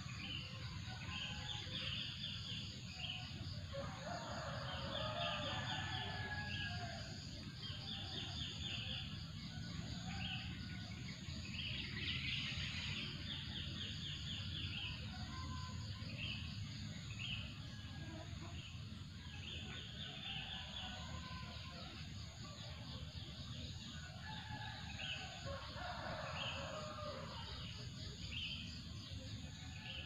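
Morning bird chorus: small birds chirping in short, quickly repeated phrases throughout, with a rooster crowing a few times, over a steady low background noise.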